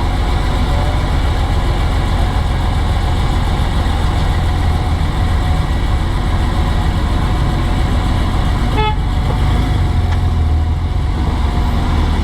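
BMW M3 E46's straight-six engine running at a steady speed, heard onboard the car. A brief beep sounds about nine seconds in.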